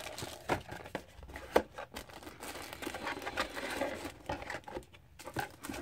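Plastic bag crinkling and rustling as a bagged HDMI cable is handled, with irregular light clicks and taps from the cardboard box packaging.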